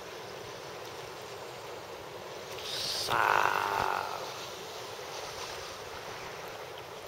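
Steady wind and water noise from small choppy waves, with a louder rush for about a second and a half near the middle.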